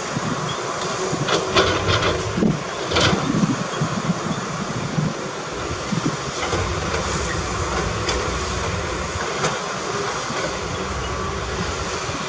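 Heavy diesel earth-moving machinery running steadily, with several sharp knocks about one to three seconds in.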